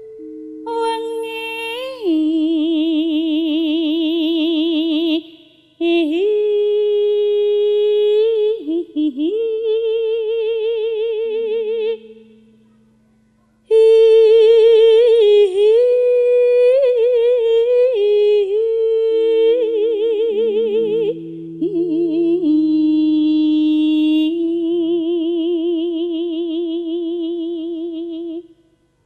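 A woman singing a slow Javanese jineman in sinden style, drawing out long held notes with a wide, even vibrato and sliding ornaments between them. She breaks off for a breath about halfway through, and a few faint low held notes sound beneath her voice.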